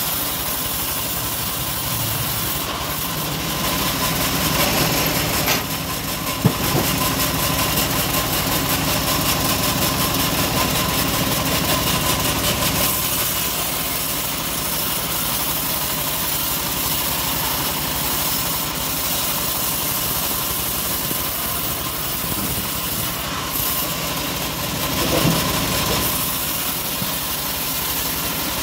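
Homemade bandsaw mill running steadily, its band blade sawing through a teak log, the cutting noise growing louder and then easing off as the log feeds through. There is one sharp knock about six and a half seconds in.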